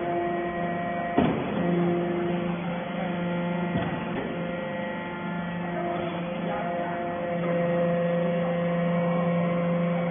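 Hydraulic vertical scrap baler running: a steady hum from its motor and pump, with some of the tones dropping out and returning. Two short knocks come about a second in and near four seconds.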